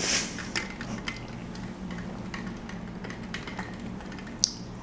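Scattered faint clicks and taps, with a short burst of noise at the start and one sharper click near the end, over a steady low hum.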